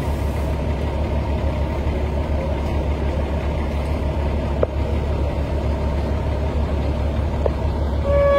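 Passenger train running, heard from on board: a steady low rumble with a faint drone and two sharp clicks. The train's horn starts to blow right at the end.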